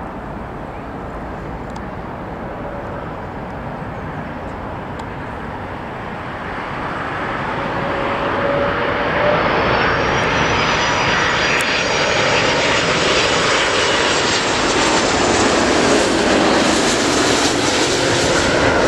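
Airbus A330 twin-engine jet airliner on final approach, its engines rumbling and growing louder as it comes in low overhead. From about halfway through, a high fan whine rises above the roar.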